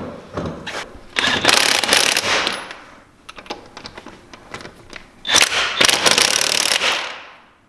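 Impact wrench running the lug nuts onto a UTV wheel in two rattling bursts, each a second and a half to two seconds long. The nuts are being run down snug, to be torqued by hand afterwards.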